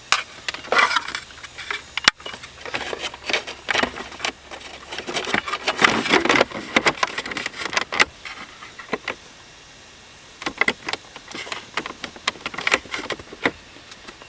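Hands fitting a toggle switch and its plastic center-console panel back into place: irregular clicks, knocks and rustling of plastic and wires, with a quieter lull about two-thirds of the way through.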